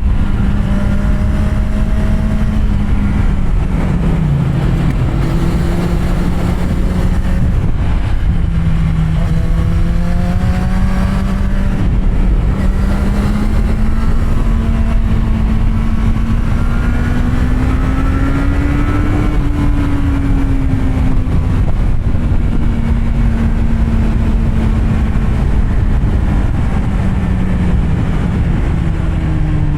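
Kawasaki Z750R inline-four with an SC-Project exhaust under way at moderate, fairly steady revs; the engine note drops briefly about four seconds in and rises and falls gently a little before the twenty-second mark. Steady wind rush runs underneath.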